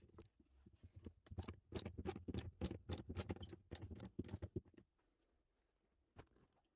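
Quick, irregular clicks and rattles of hands handling plastic and metal scooter parts. They stop short about five seconds in, with one more click a second later.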